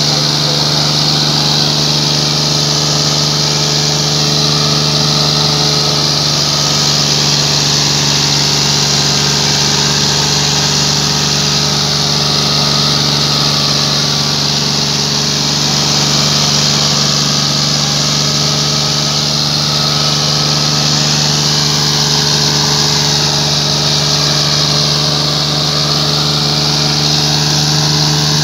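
John Deere 5039D tractor's three-cylinder diesel engine running hard at a steady pitch, pulling under heavy load while its rear tyres churn through loose dirt.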